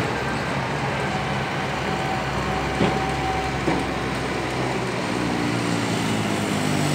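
Scania tractor-trailer's diesel engine running as the truck drives past, a steady low rumble with road noise, its note growing louder and rising slightly near the end.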